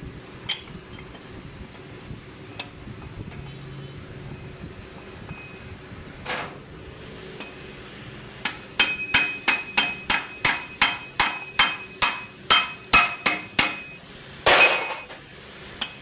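A hammer striking metal in a steady run of about seventeen ringing blows, roughly three a second, starting about halfway through. A few single clinks come before it and a short loud scrape or hiss comes after.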